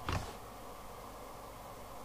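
A brief knock and rustle as a clipboard with a paper test sheet is shifted on the bench, then a steady faint hiss.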